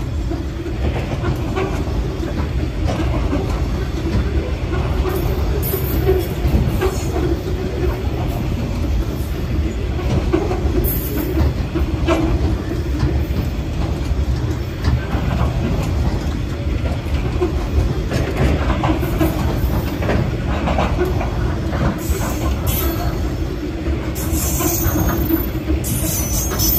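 Loaded grain hopper wagons rolling past close by: a steady low rumble with wheel clatter and brief high-pitched wheel squeals now and then, more of them near the end.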